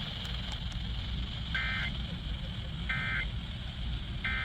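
Emergency Alert System end-of-message (EOM) data bursts: three short two-tone digital squawks about 1.3 seconds apart, marking the end of the required monthly test, over a steady low rumble.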